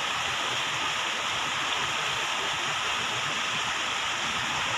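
Floodwater flowing after heavy rain: a steady, unbroken rush of running water.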